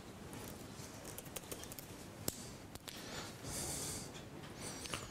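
Scattered light clicks of a laptop keyboard and trackpad being typed on, over quiet room noise, with one sharper click about two seconds in and a brief hiss a little after the middle.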